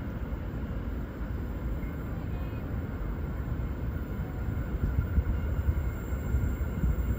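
V/Line N class diesel-electric locomotive approaching: a low, steady rumble that grows louder over the last couple of seconds.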